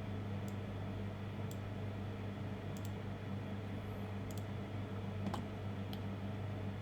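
Scattered computer mouse and keyboard clicks, about six in all, over a steady low hum.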